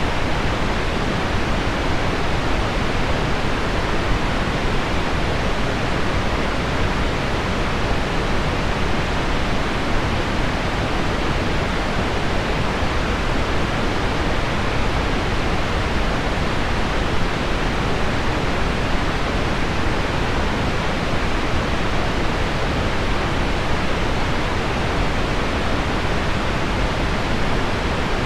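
Steady, even rushing noise of heavy rain on window glass blended with low pink noise, without breaks or separate drops standing out.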